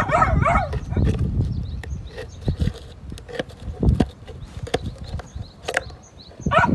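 Small clicks and knocks as fingers tap and pry at the metal lid tab of a surströmming tin resting on a brick. A short pitched call is heard at the start and another at the very end.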